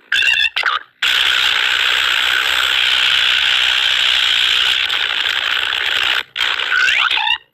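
Cartoon sound effects: a few short sweeping sounds, then a steady mechanical ratcheting for about five seconds, ending in more sweeping sounds that cut off.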